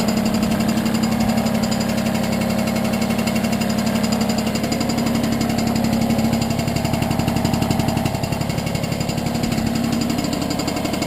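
Piaggio Ciao moped's 49cc two-stroke single-cylinder engine running steadily at a fast even pulse, with only slight changes in speed.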